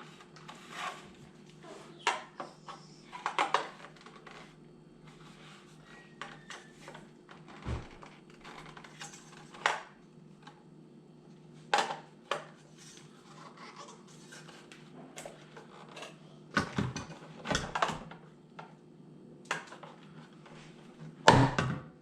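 Parts of a Lumary camera bird feeder being handled and fitted together: irregular clicks, knocks and light clattering, with a few louder knocks near the end, over a steady low hum.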